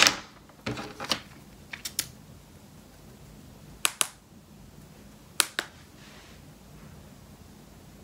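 A makeup brush tapping against a cardboard eyeshadow palette: sharp taps, several in quick pairs, every second or two over the first six seconds.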